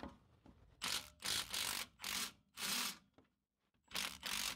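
Milwaukee cordless impact wrench hammering in a series of short trigger bursts, each about half a second long, with a pause of about a second in the middle. It is undoing a 16 mm nut.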